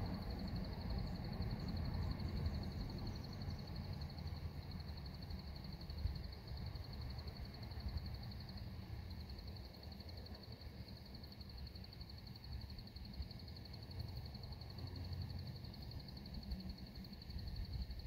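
Evening insect chorus: a continuous, high, finely pulsing trill that holds one pitch throughout, over a low uneven rumble.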